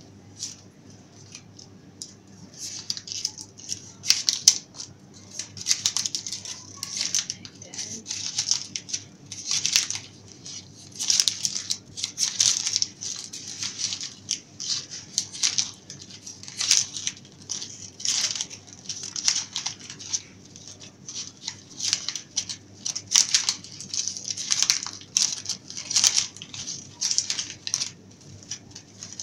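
Shiny purple plastic ribbon crinkling and rustling in short, irregular bursts as hands pull and fluff its loops into a pull bow.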